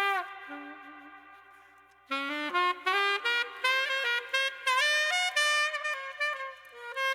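Background music: a solo melody line with no drums or bass. It fades out about two seconds in and, after a brief silence, a new phrase of notes starts.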